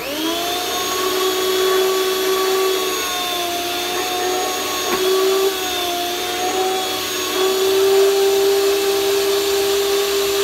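Electric meat slicer's motor and circular stainless blade switching on and spinning up to a steady whine. Its pitch sags a little twice as a frozen beef roast is pushed against the blade.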